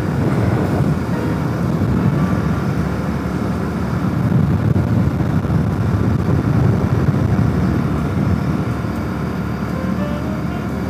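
Motorcycle running steadily at highway cruising speed, its engine drone mixed with a steady rush of wind.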